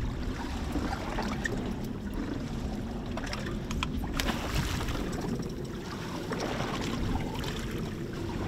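Fishing boat at idle on open water: a steady low rumble with water sloshing against the hull and wind on the microphone. A few sharp clicks come about three to four seconds in.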